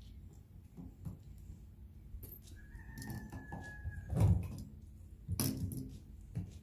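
Small clicks and rattles of a screwdriver and screws as the choke cover screws on a Rochester carburetor are backed out, with two louder knocks about four and five and a half seconds in as the carburetor is handled and turned on the cloth. A faint thin high tone runs for about a second and a half near the middle.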